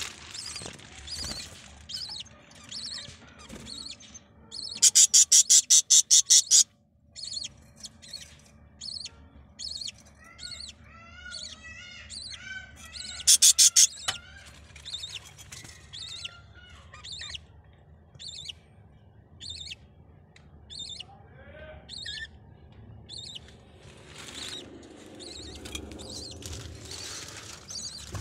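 Budgerigar calling: a steady run of short chirps about one or two a second, with some rising warbled chirps. The chirps are broken twice by loud, fast, harsh squawks, about five seconds in and again at about thirteen seconds.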